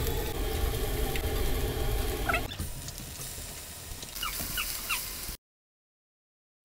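Onions sizzling in hot oil in a cast-iron skillet. After a cut, a quieter sizzle of beef patties frying in the same pan. A few short, high, rising chirps are heard about two seconds in and again after four seconds, and the sound cuts out a second before the end.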